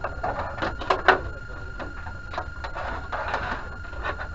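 Clicks and knocks of a Panasonic CRT television's plastic rear cabinet being handled and fitted, with two sharp knocks about a second in. A steady high tone runs underneath.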